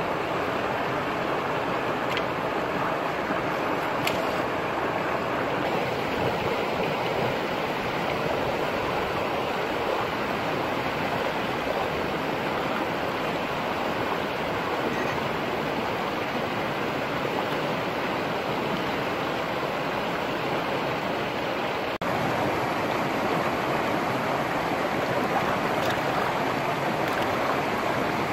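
Steady rushing of flowing river water, slightly louder after a cut about 22 seconds in, with a couple of faint clicks in the first few seconds.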